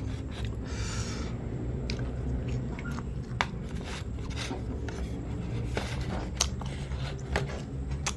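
Mouth sounds of soft sweet bread being chewed close to the microphone, with the bread torn apart by hand and a few sharp clicks scattered through, over a steady low hum.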